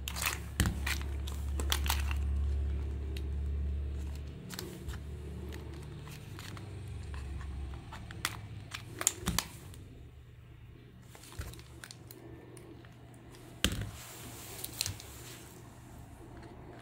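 Close handling noise from working on a plastic toy's wiring and housing with tweezers and pliers: rustling and scraping with a low rumble at first, and a few sharp clicks of tools and plastic parts.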